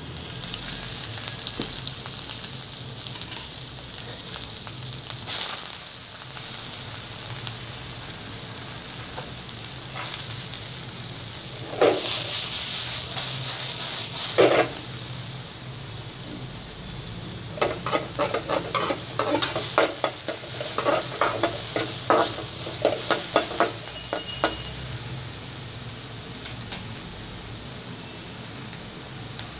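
Diced vegetables frying in oil in a wok, with a steady sizzle. Louder surges come about twelve to fifteen seconds in as the wok is tossed, then a quick run of stirring strokes scraping the wok.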